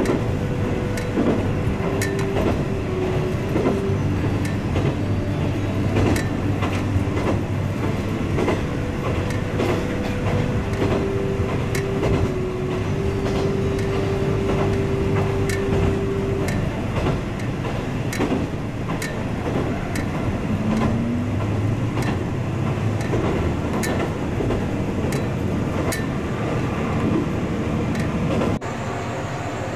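Kanto Railway KiHa 310 diesel railcar heard from inside while running, its DMH17 engine droning under the clickety-clack of the wheels over rail joints. Near the end the sound cuts abruptly to a quieter steady hum.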